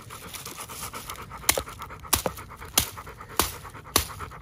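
Dog panting close by. From about a second and a half in come five sharp, evenly spaced cracks a little over half a second apart, as a woody vine is being cut.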